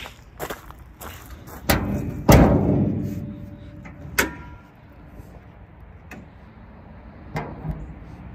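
Sheet-metal hood of a 1989 Mazda B2200 pickup being handled and lifted open: a thud, then a loud metallic clunk that rings and fades over about a second, and a sharp ringing clank about two seconds later.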